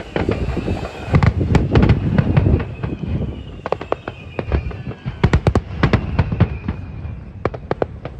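Aerial fireworks shells bursting: many sharp bangs and cracks in quick clusters, thickest in the first few seconds and again around the middle, over a deep rumbling, with a faint high thin whistle drifting slightly downward.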